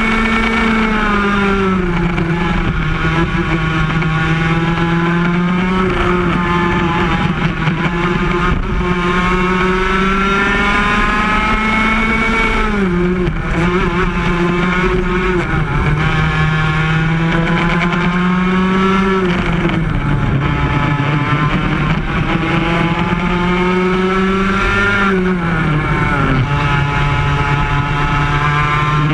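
Yamaha KT100 two-stroke single-cylinder kart engine racing at full throttle, heard up close from the kart itself. Its note rises steadily along the straights and drops quickly three times where the driver lifts for corners.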